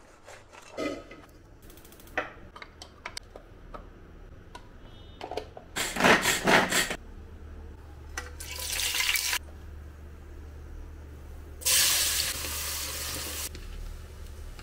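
Kitchen work sounds: several sharp knocks of a cleaver chopping raw chicken on a wooden board, then three loud stretches of running tap water. A low steady hum starts about seven seconds in.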